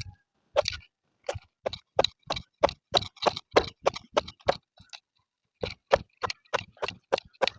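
Onions being crushed by hand: a steady run of sharp strikes, about three a second, with a short break a little past the middle.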